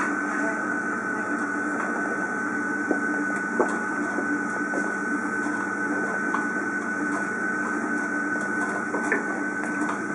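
Steady machine hum with a high whine in a kitchen, with a few light clicks and knocks of utensils and one sharper knock about three and a half seconds in.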